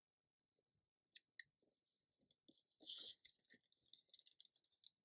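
Faint, irregular crinkling and clicking of clear plastic window film being handled and pressed down by hand, starting about a second in and densest near the middle.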